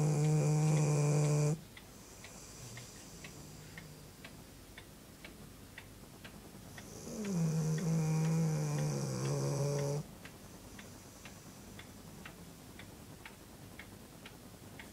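A sleeping dog snoring: a loud, low-pitched snore that stops about a second and a half in, then another from about seven to ten seconds in that starts slightly higher and drops in pitch. Between snores a faint regular ticking goes on, about two ticks a second.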